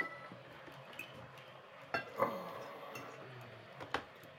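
Tableware clinking on a dinner table: a few light clicks of cutlery against plates and glasses, spaced about two seconds apart, one followed by a brief ringing tone.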